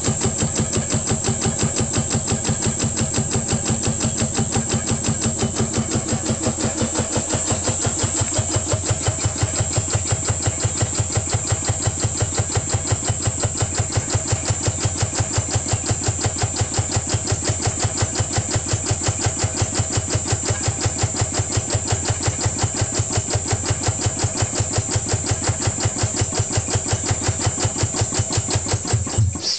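Rebuilt piston air compressor, driven by a 4 HP three-phase electric motor at half speed, running with an even, rapid chuffing beat of about five strokes a second. It stops suddenly near the end.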